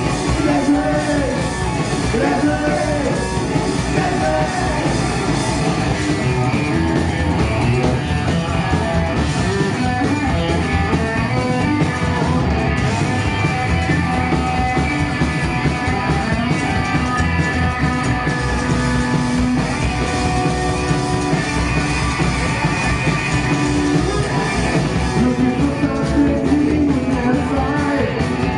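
A live rock band plays: electric guitar, upright double bass and drums, heard as loud and steady throughout. There is sung lead vocal in the first few seconds and again near the end, with an instrumental stretch between.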